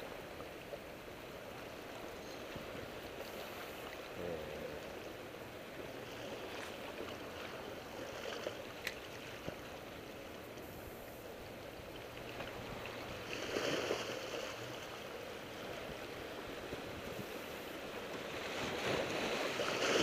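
Steady seaside noise of wind and sea water washing, swelling louder for a moment about two-thirds of the way through.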